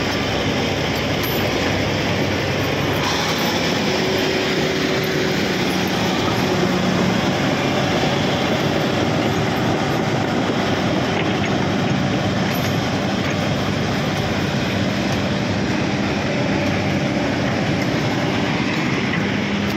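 Crawler bulldozers working close by: a diesel engine running, with the rattle of steel tracks, loud and steady.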